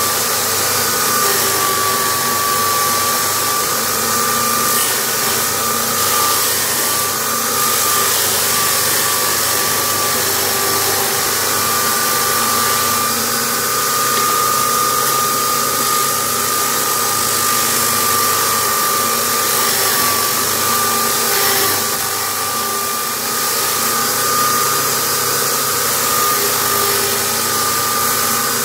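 Corded electric drill running steadily as a homemade disc sander, its motor giving a steady whine that wavers slightly, while a piece of wood is pressed against the spinning sandpaper disc and sanded.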